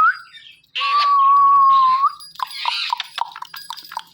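Indian ringneck parrots calling: one long, steady whistle starting just under a second in that rises at its end, followed by a quick run of short chirps and squawks.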